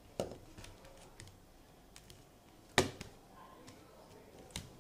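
Fluffy homemade slime (glue, laundry detergent and shaving foam) being kneaded and pressed against a plastic bowl, giving a few sharp clicking pops with fainter ticks between. The loudest pop comes near the middle.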